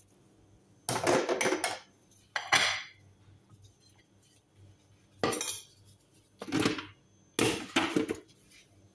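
The clear plastic jar of a Geepas blender being handled, knocked and clattered against its base in five short bursts; the blender motor is not running.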